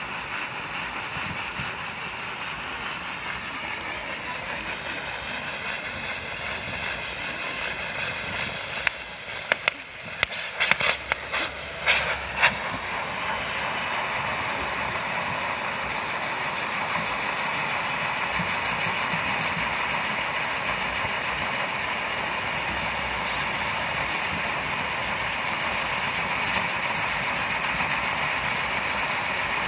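Ground firework set piece spraying sparks, hissing steadily. A quick run of sharp cracks comes about a third of the way in.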